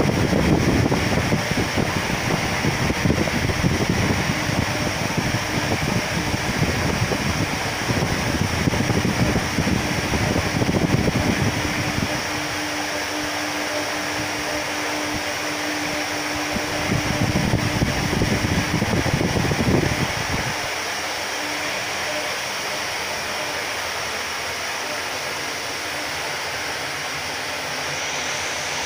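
Steady rushing noise of a running fan, with a low rumble that comes and goes through the first half and returns briefly later before dropping away.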